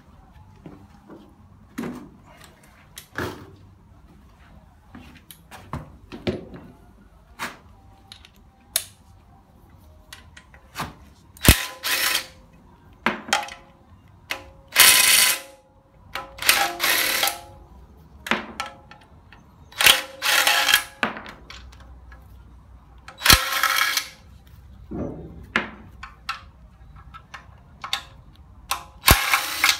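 Ratchet wrench undoing the oil pan bolts of a Hyundai Accent 1.5 16-valve engine, in about five short bursts of ratcheting between scattered metal clicks and taps of bolts and tools.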